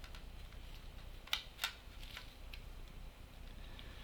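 Small parts of a Korg NTS-1 DIY synthesizer kit clicking and tapping as they are handled and fitted together by hand, with two sharp clicks about a second and a half in.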